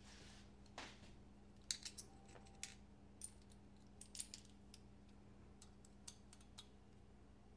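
Faint, scattered small clicks and taps of folding-knife parts and tools being handled during reassembly, the sharpest about two seconds in, over a faint steady hum.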